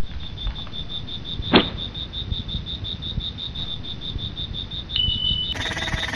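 Cricket chirping in a steady, rapid, high-pitched pulse over low rumbling noise. A single sharp click comes about one and a half seconds in, and a short high beep near the end.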